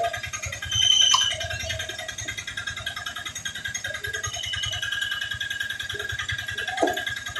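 An engine running steadily with a rapid, even low throb, getting louder for a moment about a second in.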